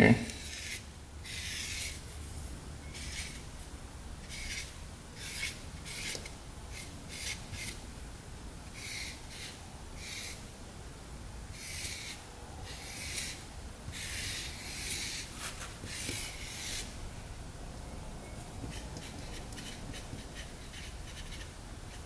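Pen strokes scratching across paper while a diagram is drawn for laying out engine valves: short scratchy strokes at irregular intervals, busiest a little after the middle, over a faint low hum.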